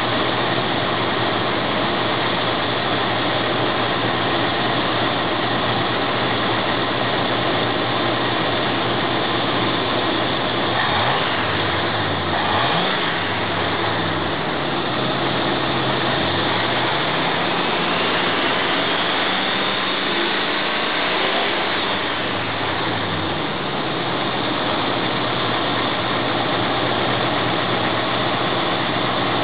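Ford 302 small-block V8 engine running steadily, its engine note shifting down and back up a couple of times about midway.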